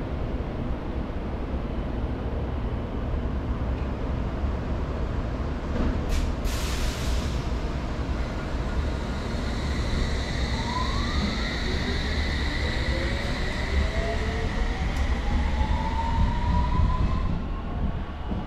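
London Underground District Line S7 Stock train pulling out of the station, its traction motors whining in several rising tones as it gathers speed over a steady rumble. A short burst of hiss comes about six seconds in.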